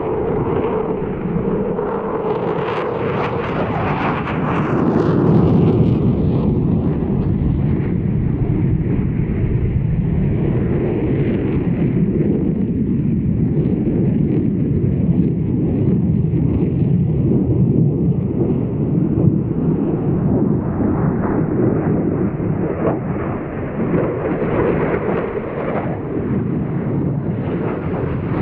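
Eurofighter Typhoon jet fighter's twin turbofan engines, a loud continuous jet rumble with a brighter, hissing edge for a few seconds early on as the aircraft passes.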